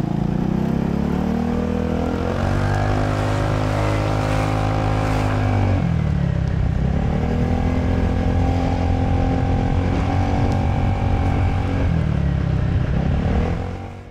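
Gilera Runner VXR 200 scooter's single-cylinder four-stroke engine running under the rider in traffic. Its pitch climbs as it accelerates about two seconds in, falls off around six seconds, climbs again and holds, and dips once more near the end before fading out.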